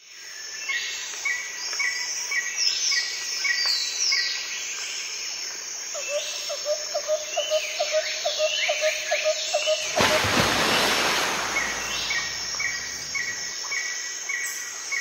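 Forest ambience: several birds calling, with a repeated chirp and quick sweeping whistles, over a steady high insect drone. About two-thirds of the way through, a rush of noise lasts about two seconds.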